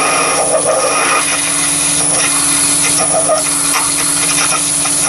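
Chinese mini lathe running while a half-inch twist drill bores into a spinning brass bar: a steady motor hum and high whine with the rough noise of the drill cutting.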